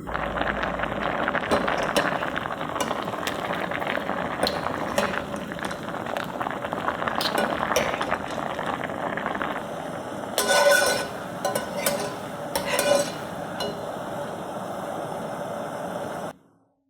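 Potatoes crackling as they cook in a pot or pan, with a utensil stirring and clinking against it. Louder stirring clinks come about ten and again about twelve seconds in, and the sound cuts off abruptly near the end.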